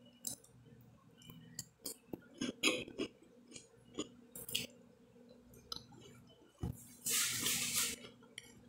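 Close-up chewing of buttered water-and-salt crackers, a string of short crisp crunches over the first few seconds. About seven seconds in, a second-long rustling hiss.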